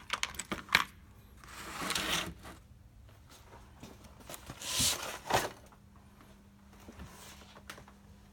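Objects being handled and moved: a few sharp clicks and knocks in the first second, then two longer rustling, scraping noises about two and five seconds in.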